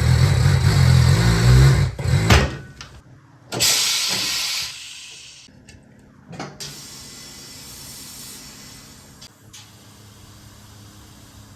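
A vehicle engine running, with its pitch rising and falling, cuts off about two and a half seconds in. About a second later comes a short burst of hissing, and after that only a faint steady background.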